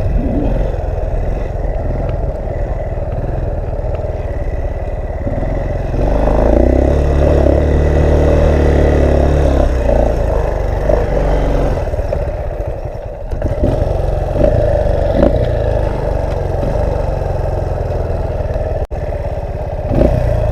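Small off-road vehicle's engine running at low revs under wind noise on the microphone. It picks up louder about six seconds in and eases off around twelve seconds. A few rattles and knocks come through along the way.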